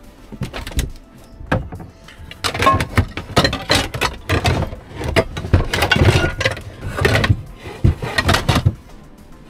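Irregular knocking, rustling and clattering of cooking gear being moved and handled, in a run of short bursts from about two and a half seconds in until near the end.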